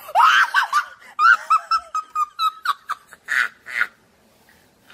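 High-pitched human laughter in quick squealing bursts, breaking into a couple of breathy, wheezing gasps about three seconds in.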